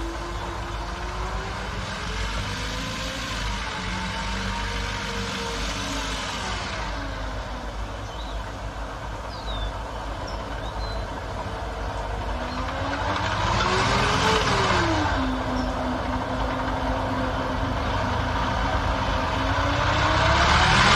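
StuG III G assault gun's engine and tracks running as it drives. The engine pitch rises and falls several times, with swells of noise about two-thirds in and at the end, and it gets louder over the last third.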